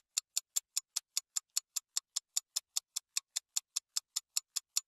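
Ticking sound effect laid over a fast-forwarded screen recording: short, sharp, even ticks at about five a second, like a fast clock.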